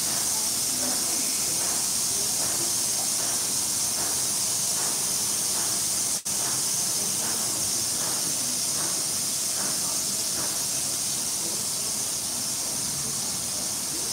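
A steady, loud hiss, broken by a short dropout about six seconds in, with faint pulses about twice a second under it.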